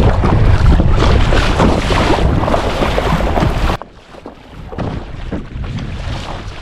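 Wind buffeting the microphone over choppy sea water, loud and heavy in the lows, cutting off suddenly about two-thirds of the way through, leaving quieter splashing of water.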